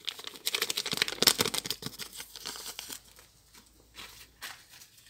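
Crinkling and tearing of a small sachet of sugared vanilla being opened and emptied over a plastic tub, a dense crackle for the first two seconds or so that thins to a few scattered rustles after about three seconds.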